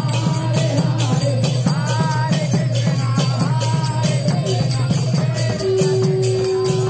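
Devotional kirtan music: voices singing over jingling hand percussion that keeps a steady beat of about four strokes a second. A long held note comes in near the end.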